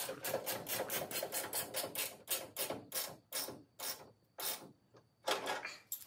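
Socket ratchet wrench clicking as it is swung back and forth to turn a bolt on a radiator mounting bracket, a short run of pawl clicks on each back-stroke. About four strokes a second at first, slowing after about three seconds, with a pause about five seconds in.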